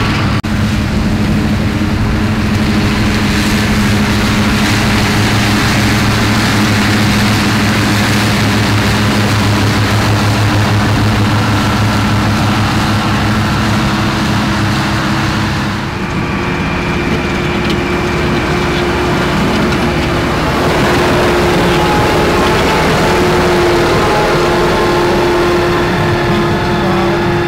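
Tractors mowing grass, their diesel engines running steadily under load with the mowers cutting. About halfway through the sound changes to a higher-pitched drone with a faint whine.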